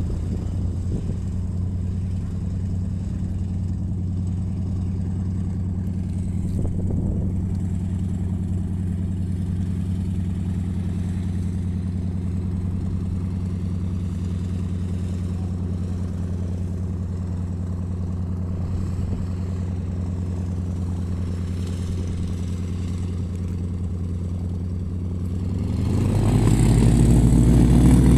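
Light single-engine aircraft engine running steadily; near the end it grows louder and rises in pitch as the tow plane comes closer.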